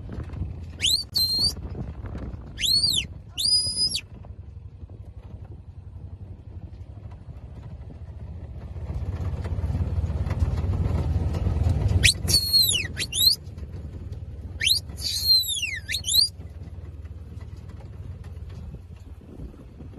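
Two-hole brass Turbo shepherd's whistle blown in short command signals to working sheepdogs: a few quick rising and flat notes near the start, then after a pause a run of falling sweeps and a long downward glide around the middle. A low rumble swells between the whistle calls.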